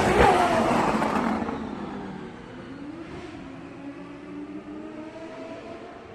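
Race car engine passing by at speed, its pitch dropping as it goes past near the start, then fading away into the distance with a fainter engine note still running.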